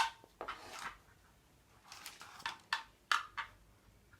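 Hard plastic parts of a vacuum cleaner being handled and fitted together: a series of separate sharp clicks and knocks, with a brief rustle near the start.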